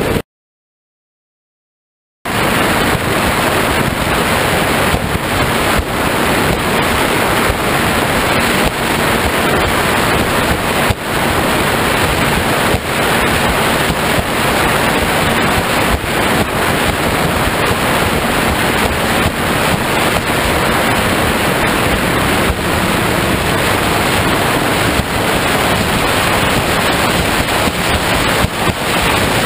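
Wind buffeting the microphone of a camera on a high-performance powerboat running at speed, mixed with the rush of water and spray along the hull: a loud, steady rush. The sound drops out completely for about two seconds right at the start.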